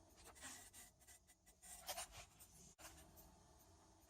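Faint, scratchy chattering made of irregular quick clicks and rasps.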